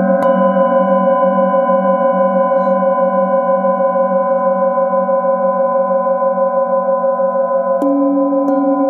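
Several metal singing bowls ringing together in a sustained, layered hum with a slow wavering beat in the low tones. A bowl is struck with a mallet just after the start, and two more strikes near the end bring in a new, lower tone.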